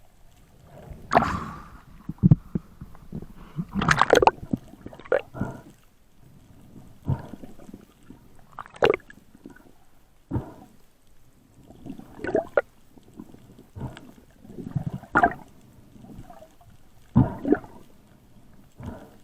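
Irregular water splashes and gurgles, a burst every second or two, as a diver moves through the sea.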